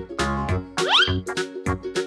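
Bouncy children's-style background music with a steady beat, with a quick rising slide sound effect about a second in.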